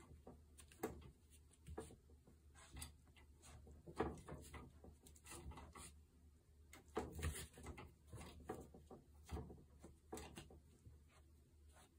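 Toy poodle pawing at a wire playpen and biting and tugging a cloth through the bars: faint, irregular clicks, scrapes and rattles of the wire panel, a few louder knocks among them.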